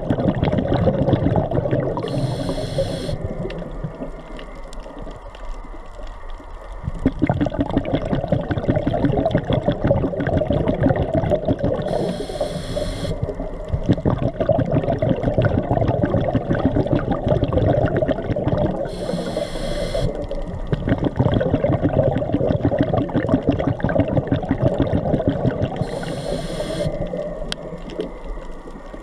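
Underwater scuba breathing through a regulator: a short hissing inhale about every seven seconds, four times, each followed by several seconds of bubbling exhale, over a constant fine crackle.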